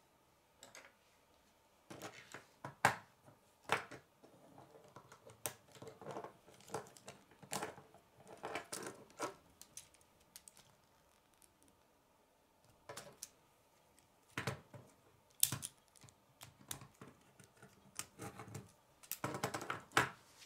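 Plastic K'nex pieces clicking and snapping together as they are handled and fitted: irregular small clicks and rattles with pauses between, and a dense run of clicks near the end.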